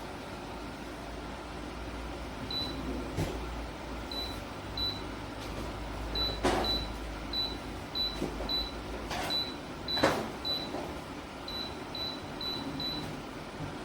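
LEVOIT tower fan running with a steady rush of air, its control beeping many times with short, high, identical beeps as its settings are stepped through. A few soft knocks are heard among the beeps.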